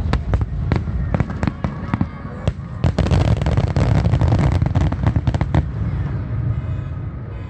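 Aerial fireworks shells bursting in quick succession, many sharp bangs at once. Near the middle they thicken into a dense, loud barrage of crackling bursts, then die away over the last couple of seconds.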